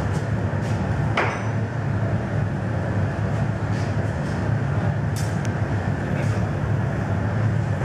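Steady low roar of a glassworks furnace, with a sharp metal clink about a second in and a brief metallic ring a little after five seconds.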